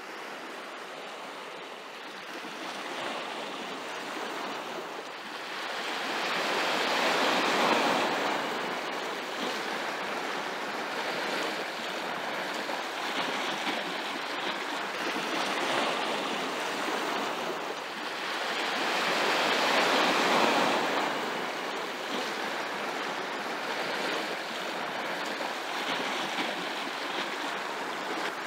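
Sea waves breaking and washing over a rocky shore: a steady rush of surf that swells louder twice, about a quarter of the way in and again about two-thirds of the way in.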